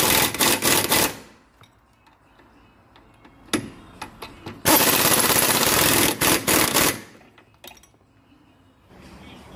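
Impact wrench hammering on the front lower-arm ball-joint bolt to run it up tight. One burst ends about a second in, a short one follows, and a longer burst of about two seconds comes in the second half, with small clicks in the gaps.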